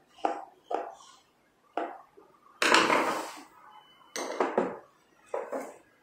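Clicks, knocks and clatter of metal lock parts and a screwdriver being handled and fitted against the lock's mounting board, a handful of short knocks with one louder, longer rattle about three seconds in.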